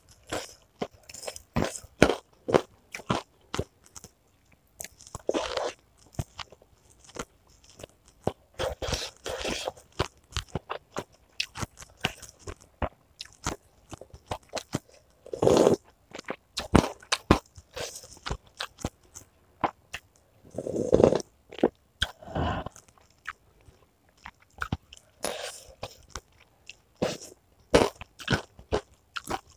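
Close-miked chewing of crunchy chicken cartilage (tulang rangu) with meatballs: many rapid, crisp crunches, with a few louder, longer chewing sounds about halfway and two thirds through.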